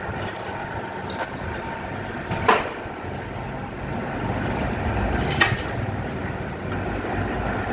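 Steel drum lid cutting machine running with a steady mechanical rumble, and two sharp metallic clanks about two and a half and five and a half seconds in.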